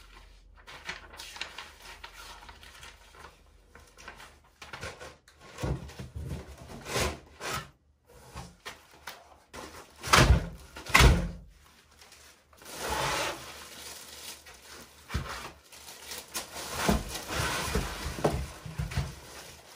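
Packaging being handled: a paper leaflet rustling, then foam packing and the plastic wrap around the rack server scraping and rubbing as the server is pulled free of the cardboard box. Two loud knocks come about halfway through.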